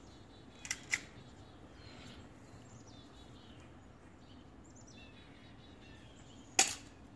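Single sharp snap of an airsoft pistol shot near the end, the loudest sound; two light clicks about a second in. Faint birdsong chirps in between.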